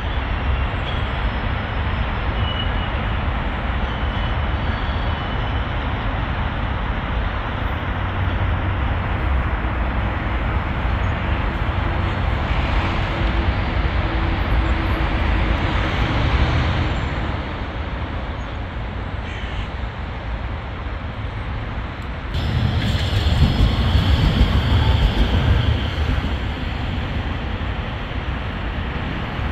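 Steady outdoor city noise: a low rumble of traffic and wind on the microphone. It grows louder about 22 seconds in.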